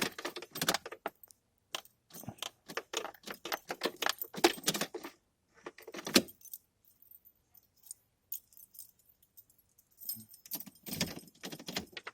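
Bursts of metallic jangling and clinking from small metal objects being handled, with quiet gaps in between.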